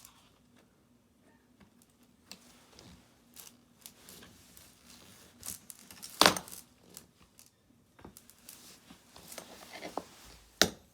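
Small clicks, taps and rattles of plastic and metal RC car wheel and axle parts being handled and fitted by hand, with a louder clatter a little past six seconds in and a sharp knock near the end.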